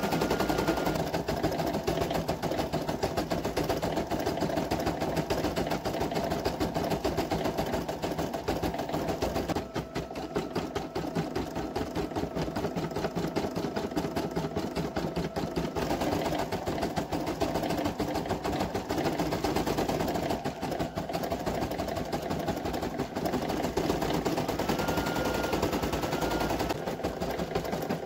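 Brother PE800 embroidery machine stitching out lettering: a fast, steady run of needle strokes.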